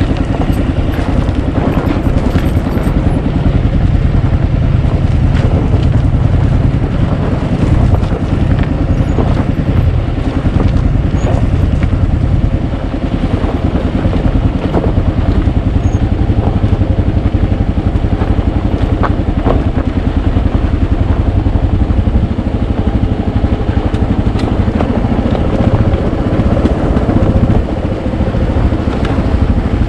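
Adventure motorcycle engine running steadily, with a few short knocks.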